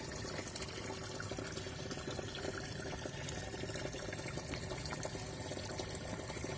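Water pouring and splashing steadily into a pond, an even rushing with small scattered drips.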